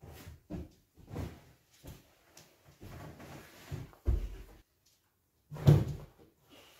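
Irregular thumps and knocks of a child's hands, feet and body landing on a rug, an upholstered sofa and a padded leather ottoman while vaulting and climbing, with the loudest impacts about four seconds in and near the end.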